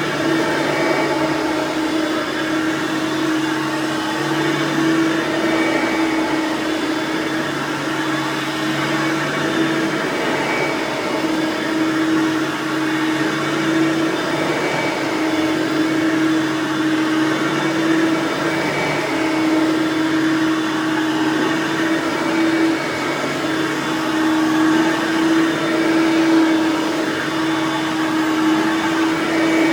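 Hoover Platinum Collection lightweight bagged upright vacuum (model UH30010, 5.5-amp direct-air motor) running steadily while vacuuming carpet. Its motor hum swells and eases a little in waves.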